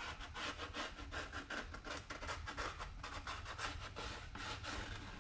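A pen scratching in quick repeated strokes, about five or six a second, as it traces a circle on a sheet-metal panel's plastic protective film.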